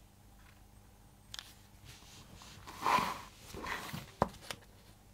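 Handling noise of a linoleum sheet being moved on a cutting mat: a short scraping shuffle about three seconds in and a smaller one just after, with a soft click before and a sharp click after.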